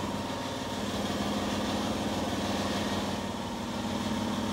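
A motor running steadily with a constant low hum that does not change.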